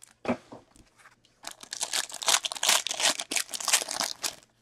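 A few light taps, then the foil wrapper of a Black Diamond hockey card pack being torn open by hand and crinkling for about three seconds.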